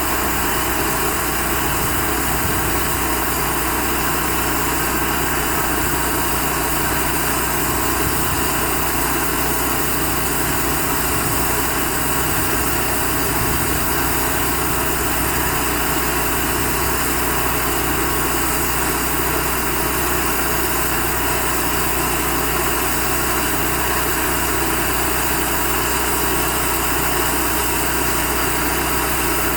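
Cook's band sawmill running steadily, sawing a 30-inch red oak log, with an even, unbroken machine drone.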